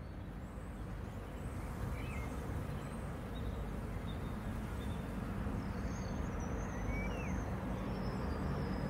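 Outdoor ambience fading in: a steady low rush of noise with a few faint bird chirps.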